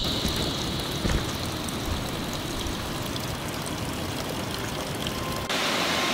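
Water trickling and dripping in thin streams down a mossy rock face, with scattered small drip ticks. About five and a half seconds in it cuts suddenly to a louder, steadier rush of water.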